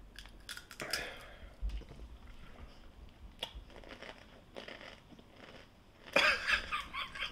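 A hard, crunchy chip being bitten and chewed, with several sharp crunches in the first second or so and quieter chewing after. A brief burst of voice near the end.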